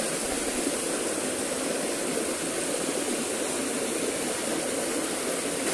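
Small stream spilling over rocks into a pool: a steady rush of water.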